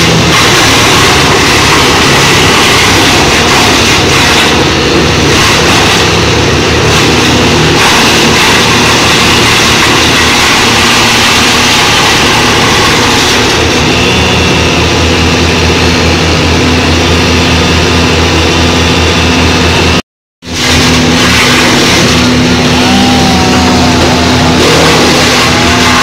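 Trailer-mounted wood chipper running loud and steady under load as pine branches are fed into it and chipped. The sound cuts out for a split second about three-quarters of the way through, then carries on as before.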